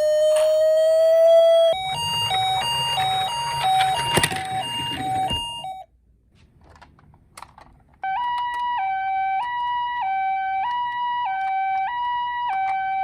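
Toy ambulance minicar's electronic siren. It starts as a slowly rising single tone, then switches to a two-tone high-low pattern over some rattling handling noise. It cuts off about six seconds in, a few faint clicks follow, and the high-low siren starts again at about eight seconds.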